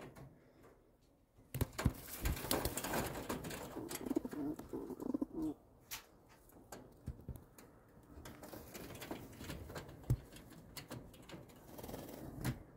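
Racing pigeons cooing in the loft, low coos mostly in the first half after a brief quiet start, with scattered light clicks and rustles.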